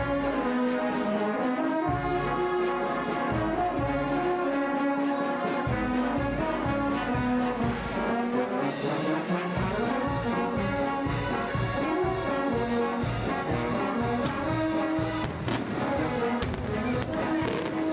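Brass band playing a tune for a religious procession, with the melody in the brass.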